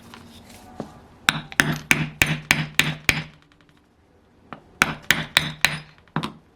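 Hammer blows tapping on a stuck crankshaft to drive it out of a Saito FA-100T twin model engine's crankcase. Two runs of sharp, quick taps, about seven and then about six, with a pause between; each tap rings briefly.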